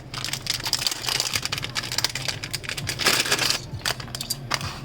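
Small parts and materials being handled and rummaged through on a workbench: a dense run of clicks, rattles and rustling, loudest about three seconds in, over a steady low hum.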